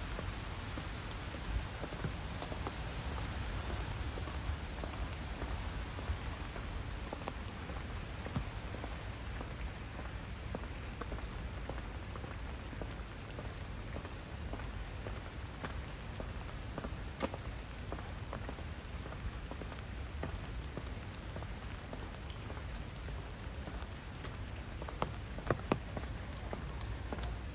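Steady rain falling, a constant hiss dotted with sharp drip ticks, with a few louder taps near the end.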